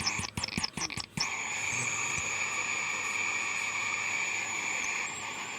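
JBL Cinema SB400 subwoofer putting out its fault noise: a hiss that sputters and crackles on and off for about the first second, then holds as a steady hiss. This is the crackling, hissing fault under repair, which the repairer at first suspects lies in the speaker cone.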